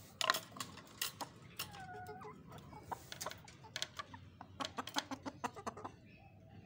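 Chickens clucking. There are many sharp clicks and taps throughout, bunched most thickly late on, and one short bending call about two seconds in.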